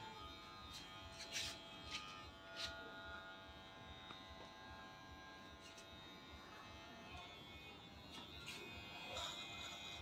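Electric hair clipper buzzing faintly and steadily, with a few light clicks in the first few seconds.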